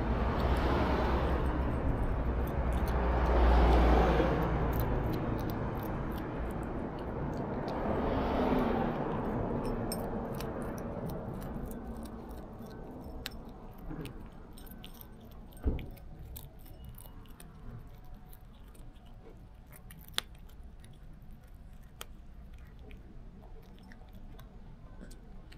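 Vehicles pass by three times in the first third, rising and falling with a low rumble. Then a cat crunches dried sardines from a bowl: many small crisp clicks and crunches, with one louder thump about two-thirds of the way through.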